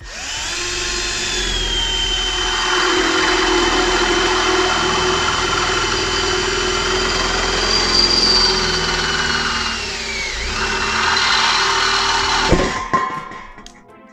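Milwaukee M12BDD compact cordless drill driver in second speed, running a 10 mm HSS bit through a thin steel plasterboard profile: a steady motor whine with the bit cutting metal. The pitch dips briefly about ten seconds in, and the drill stops about twelve and a half seconds in.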